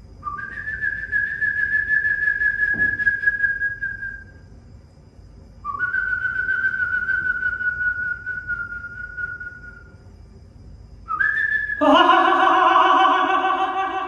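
Mouth whistling that imitates the call of the higurashi (evening cicada): two long whistled notes, each sliding up at the start and then held for about four seconds, falling a little. Near the end a short whistle gives way to a louder, buzzier voiced sound with many overtones.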